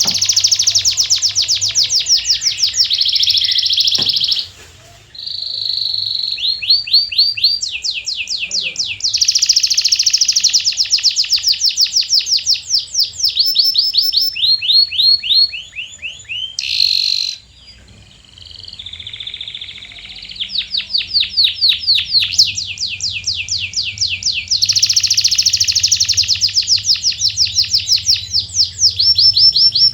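Domestic canary singing: long rolls of quick repeated notes, phrase after phrase, each roll changing in speed and pitch, with two short pauses.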